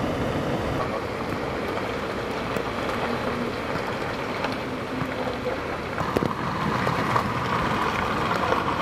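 Heavy thunderstorm rain falling steadily, with a vehicle engine running beneath it and a few sharper drop taps about six to seven seconds in.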